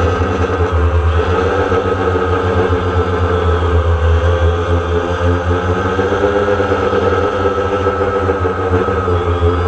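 DJI Phantom quadcopter's electric motors and propellers buzzing steadily in flight, heard from the drone's own camera, the pitch drifting slightly as the motor speeds change.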